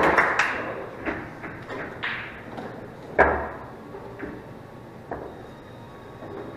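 Pool balls being gathered and racked: a few sharp clacks and knocks of the balls against each other and the table, the loudest about three seconds in with a low thud.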